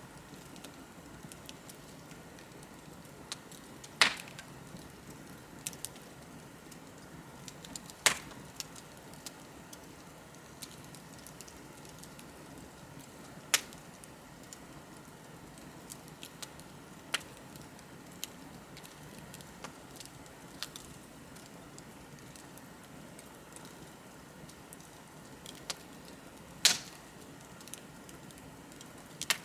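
Wood bonfire crackling: scattered small ticks with a handful of loud, sharp pops, over a soft steady rush from the flames.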